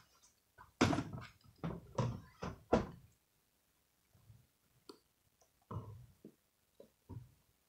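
Clunks and knocks of hard plastic gear being handled and set down: four louder thunks in the first three seconds, then quieter scattered taps and knocks. This fits a cordless string trimmer and its battery pack being handled after the trimmer has been run.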